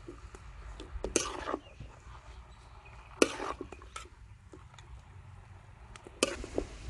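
Metal spatula scraping and tossing stir-fried yellow noodles in a steel wok: three short scrapes about two to three seconds apart, with light clinks between.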